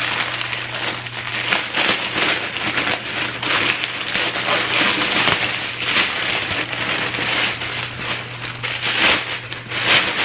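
Plastic wrapping crinkling and rustling without a break as a purse is unwrapped by hand.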